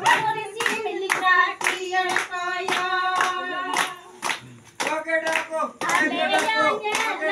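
A group of women singing together, clapping their hands in a steady beat about two to three claps a second, with a short pause about four seconds in.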